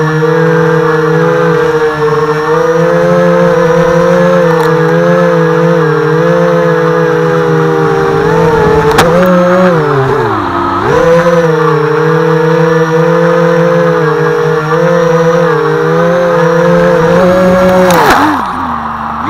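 Hobbyking FPV250 quadcopter's four brushless motors and propellers whining at close range, the pitch wavering with throttle. About nine seconds in the pitch drops sharply and climbs back. Near the end a rough scraping burst as the props chop into grass, then the motors wind down.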